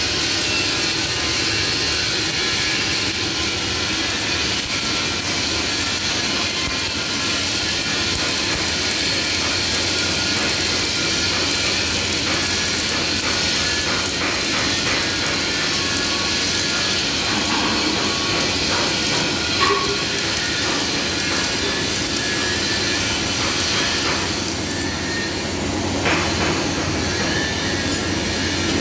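Electric arc welding on steel plate: a steady crackling hiss from the arc, with a few sharper ticks and a knock near the end.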